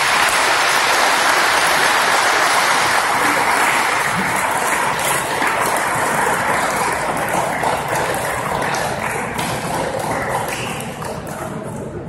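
Crowd applauding and cheering in a large sports hall, slowly dying down, with scattered single claps near the end.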